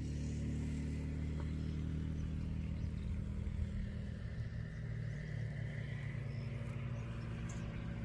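An engine running steadily with a low, even hum that does not change in pitch or loudness.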